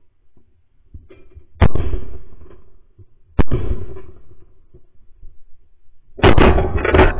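Shotgun shots at flying geese: a sharp bang about a second and a half in and another about two seconds later, each trailing off with an echo, then a denser run of several bangs near the end.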